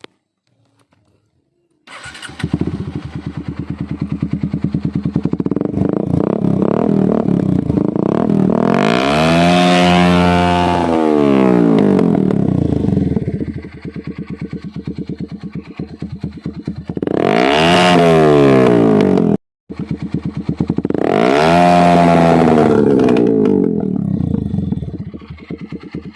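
Bajaj Rouser NS150's single-cylinder engine breathing through an Akrapovic R8 slip-on muffler. It starts about two seconds in and settles into a pulsing idle, then is revved up and let fall back three times, the exhaust note rising and dropping with each rev.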